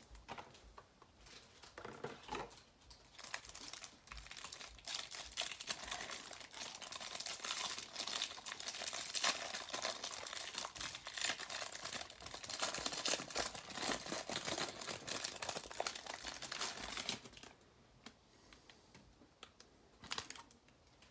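Clear plastic wrapper being torn and crinkled off a stack of baseball cards: a dense, crackling crinkle that stops about seventeen seconds in.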